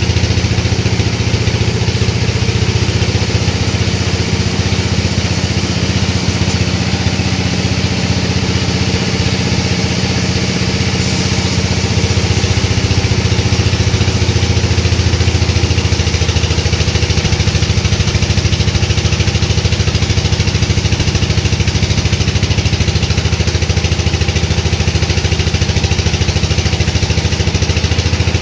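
Sawmill saw and its motor running steadily through a dry teak log, a loud continuous hum with a hiss of cutting over it. About twelve seconds in it grows a little louder and brighter and stays so.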